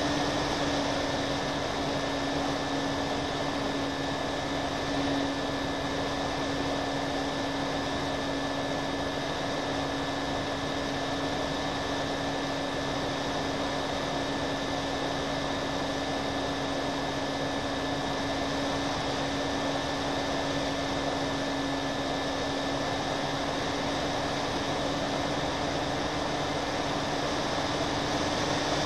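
Twin-engine radio-controlled plane's motors and propellers running at a steady pitch, heard through the onboard camera with a rush of air under the hum.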